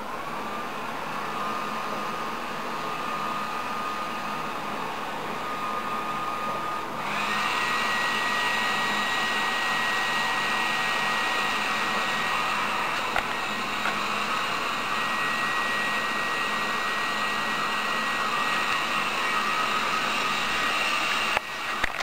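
An electric fan-motor appliance runs with a steady airy rush and a whine. The whine rises as it spins up at the start, then steps up to a higher, louder speed about seven seconds in, and the sound breaks off with a couple of clicks near the end.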